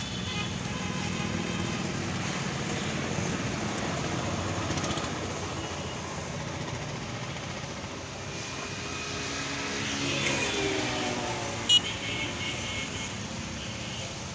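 A motor vehicle engine running steadily, with a vehicle passing about ten seconds in, its pitch falling as it goes by. A single sharp click comes shortly after.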